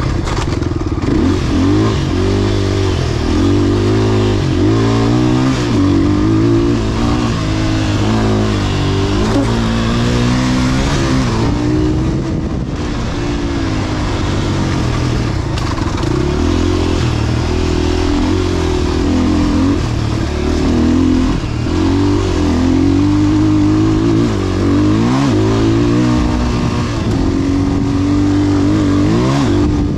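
Gasoline dirt bike engine revving hard and easing off over and over, pitch climbing and dropping with each throttle opening and shift, with a short let-off about twelve seconds in.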